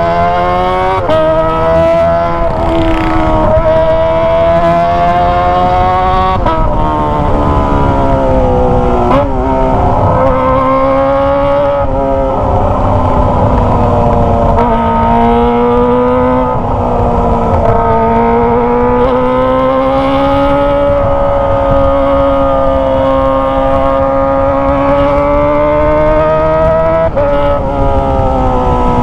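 Kawasaki ZX25R's 250 cc inline-four engine running through a Toce aftermarket exhaust while riding. Its pitch climbs and drops sharply several times in the first few seconds and again near the end, as it shifts through the gears, and it rises and falls gently at cruising revs in between.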